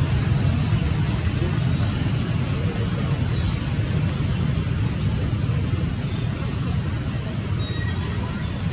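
Steady low outdoor rumble with a faint even hiss above it, unbroken and without distinct calls or knocks.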